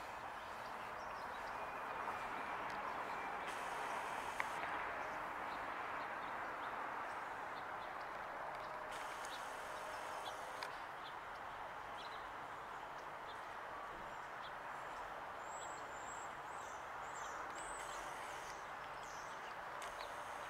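Steady outdoor background noise, with a few faint, high bird chirps about three-quarters of the way through.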